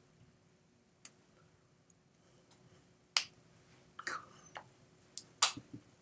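Sharp slaps and claps of hands striking together during sign language, about seven scattered hits, the loudest about three seconds in and again near the end.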